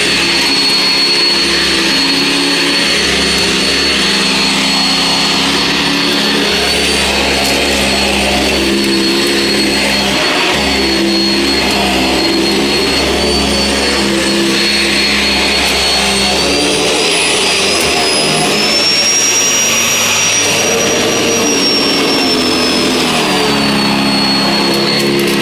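Sanitaire SC679 upright vacuum cleaner running on carpet: a steady, loud motor whine. Its high tone rises in pitch about two-thirds of the way through, holds, and settles back down near the end.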